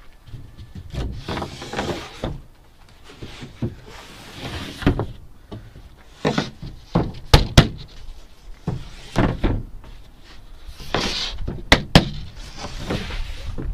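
Cut pieces of 9 mm moisture-resistant MDF being handled and shifted: scraping slides, knocks and thuds as the boards are moved and laid against each other. There are two sharp knocks about halfway through and two more near the end.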